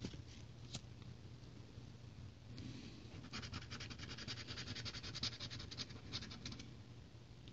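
A copper penny scratching the coating off a paper scratch-off lottery ticket in quick, rapid strokes, starting about two and a half seconds in and stopping about a second before the end. A couple of light taps come near the start.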